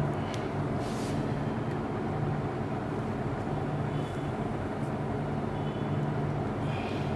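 Steady low background hum, with a few faint light clicks from a small screw being fitted by hand into a laptop heatsink.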